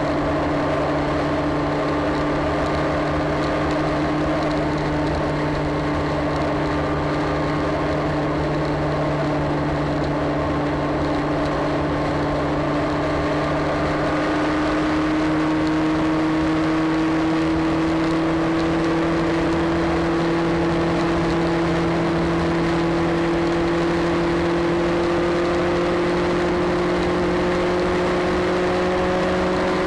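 Motorcycle engine running steadily at cruise, its note rising slowly through the second half as the revs climb, over steady wind and road noise.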